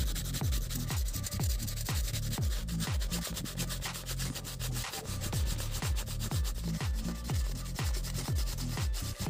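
Sandpaper (180-grit silicon carbide) rubbing back and forth by hand along a wooden knife handle, a continuous scratchy sanding, over background music with a steady beat.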